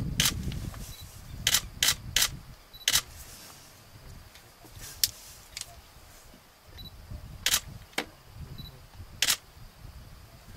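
Camera shutters clicking irregularly: about ten sharp single clicks, some in quick runs of two or three, over a low rumble.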